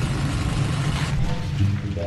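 Intro music: a loud noise sweep like a whoosh gives way, about a second and a half in, to steady musical tones over a low beat.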